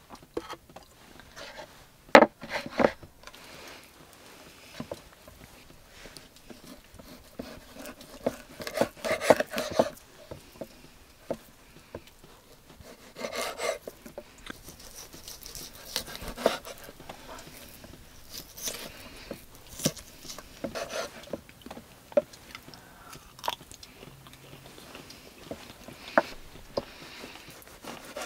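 A knife slicing slabs of pork lard (salo) on a wooden cutting board, cutting it up for cracklings: irregular knocks of the blade on the board and short rasping cuts, mixed with close-up chewing.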